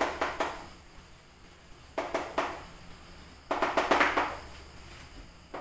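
Chalk writing on a chalkboard: short bursts of tapping and scratching strokes as words are written. The first burst comes at the start, the second about two seconds in, and a longer, louder run at about three and a half to four seconds.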